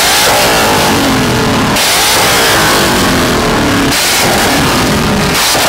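Car engine revved hard again and again, its pitch climbing and then dropping off about every two seconds, over loud hissing noise.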